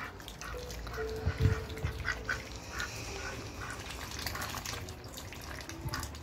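Domestic ducks quacking in short calls while one splashes in a small plastic tub of water, with a low thump about a second and a half in.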